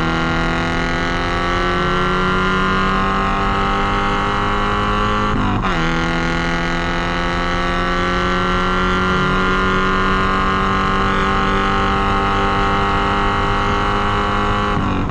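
Porsche 944's four-cylinder engine pulling under load, its pitch climbing steadily through the gears, with an upshift about five and a half seconds in and another near the end.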